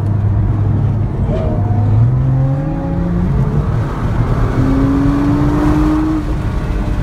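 Nissan GT-R engine and road noise heard inside the cabin at motorway speed. The engine note steps up in pitch about two seconds in as the car picks up speed, and a higher engine tone rises through the second half.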